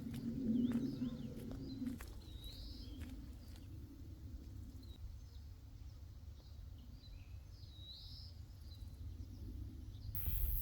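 A few scattered bird chirps over a faint low rumble of outdoor background noise that drops away about two seconds in.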